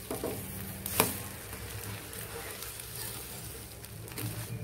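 Egg-coated chapati sizzling on a hot nonstick tawa as it is flipped and pressed down with a steel spatula, with a single sharp knock about a second in.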